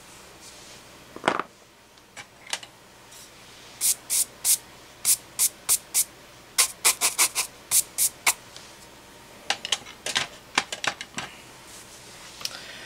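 Runs of quick, short scratchy strokes of a pencil on drawing paper, about three a second, in two bursts, after a single tap about a second in.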